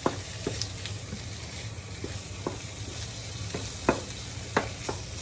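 Shrimp, egg and onion sizzling in a nonstick frying pan as a wooden spatula stirs and scrapes them, with irregular sharp taps of the spatula against the pan, the loudest about four seconds in.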